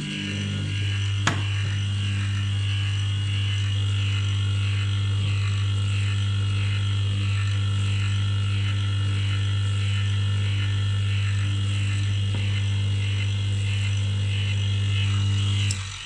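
Electric motor of a benchtop key cutting machine running steadily with a low hum and a high whine, with one sharp click about a second in. It switches off shortly before the end and the hum dies away.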